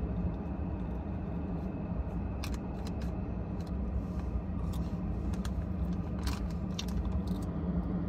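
Steady low hum of a Ford F-150 pickup idling, heard from inside the cab, with scattered light clicks and taps of a spoon against a cup.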